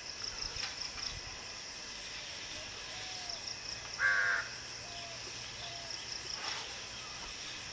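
Steady chorus of insects buzzing, with a few faint short calls and one louder pitched call lasting about half a second about four seconds in.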